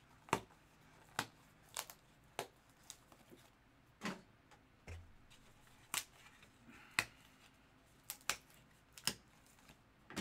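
Scattered sharp clicks and taps, about one a second at uneven intervals, with a soft low thump about five seconds in.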